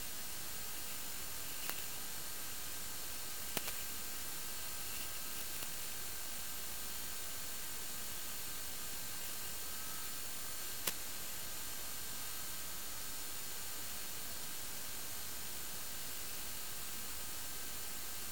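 Steady, even static hiss with faint steady tones underneath and a few brief clicks, the sharpest about eleven seconds in. No motor or wind sound stands out.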